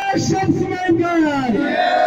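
A crowd of men shouting protest slogans together, led by a man calling out through a handheld microphone.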